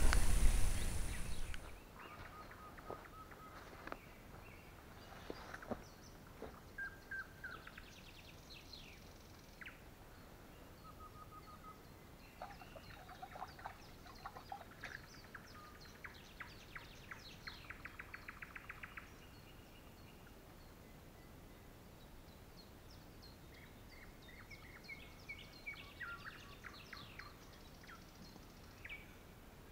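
Songbirds singing, several short whistled and chirping phrases with a fast trill about halfway through and more song near the end. A loud rushing noise fills the first second or so and then stops.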